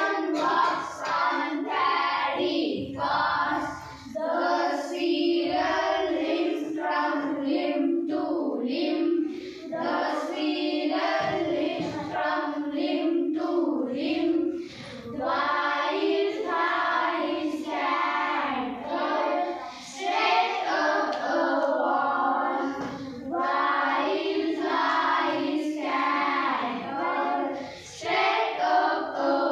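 A group of young girls singing an English action poem together in unison, in short phrases with brief breaths between them.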